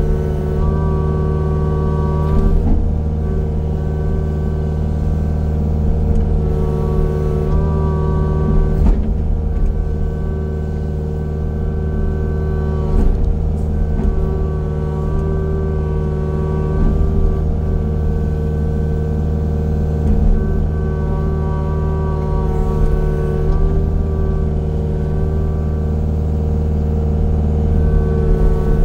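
Heavy machinery engine running steadily under load, with a few short sharp knocks or cracks.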